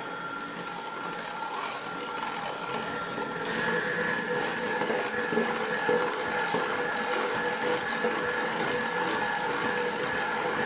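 Bosch electric hand mixer running steadily, its beaters whipping eggs and sugar in a stainless steel bowl. The motor's whine steps up in pitch and gets a little louder about three and a half seconds in.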